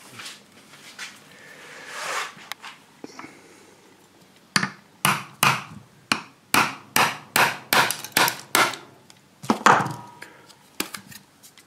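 A chisel being struck again and again, about two blows a second, driving it into the seam between two cast DIY Corian mould halves to split them apart. The blows start about four seconds in after a quiet stretch, and the last and loudest comes near the end.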